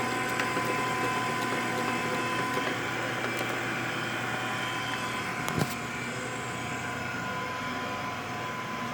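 Ko Lee S714 surface grinder running with its 2 HP spindle motor, a steady hum with a high whine in it that gets slightly quieter over the stretch. A single sharp click comes about five and a half seconds in.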